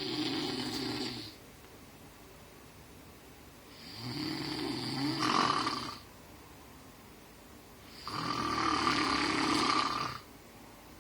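Snoring: three long snores about four seconds apart, each lasting about two seconds, with quieter breathing between them.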